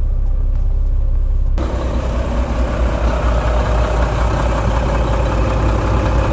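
Tractor truck's diesel engine idling steadily with a low rumble. About a second and a half in, the sound suddenly gets fuller and brighter.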